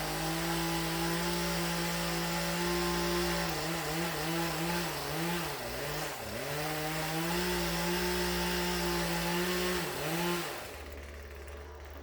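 Poulan P3314 two-stroke chainsaw running at high revs. The pitch wavers and sags for a few seconds in the middle, then climbs back, and about ten and a half seconds in it drops to a low idle.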